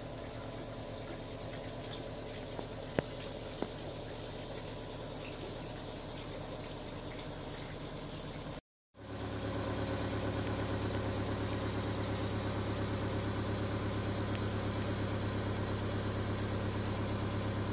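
Honda Civic coupe's four-cylinder engine idling steadily, with a couple of light clicks about three seconds in. The idle sits high while warming, around 1,000 rpm, which the owner puts down to a dirty idle air control valve. Partway through, the sound cuts and comes back louder.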